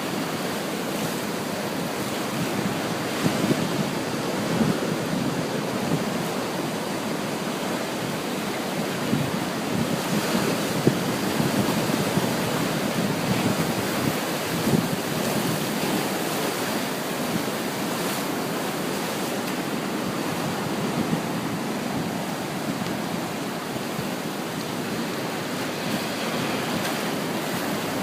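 Ocean surf breaking and washing onto the shore in a continuous rush, with small swells in level, and some wind on the microphone.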